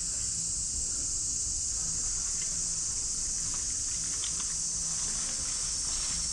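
Steady high-pitched chorus of insects shrilling, with a few faint ticks around the middle.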